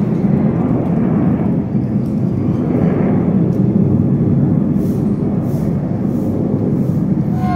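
Steady jet engine noise from a formation of aerobatic jets flying past, swelling slightly about a second in and holding.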